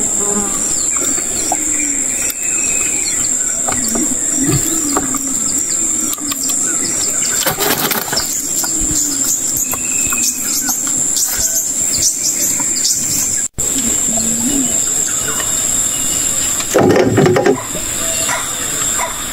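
Outdoor ambience of a steady high-pitched insect drone with scattered bird chirps. A brief loud noise sounds about two and a half seconds before the end.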